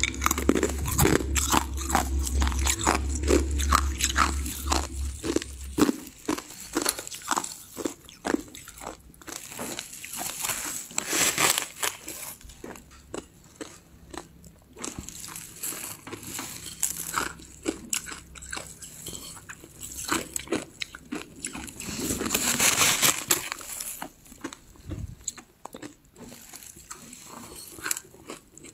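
Hard frozen ice being bitten and chewed: many sharp crunches in irregular succession, with a denser stretch of grinding crunches near the end. A low hum lies under the first several seconds.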